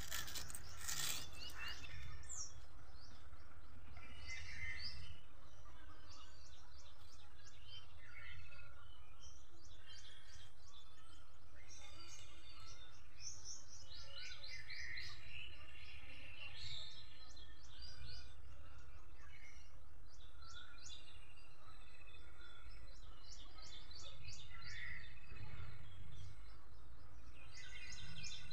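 Small birds chirping on and off, many short trills and repeated high notes, over a steady low background rumble.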